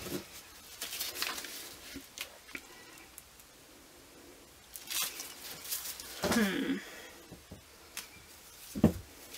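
Plastic piping bag crinkling and rustling as it is squeezed in gloved hands, with scattered light taps and clicks. A brief wordless vocal sound about six seconds in.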